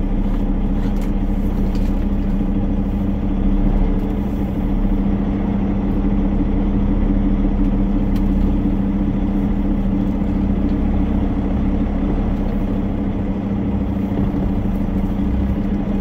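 Semi-truck diesel engine running steadily with an even low drone.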